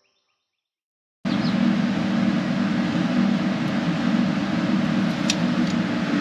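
Steady mechanical drone of machinery running, cutting in suddenly about a second in after a moment of silence.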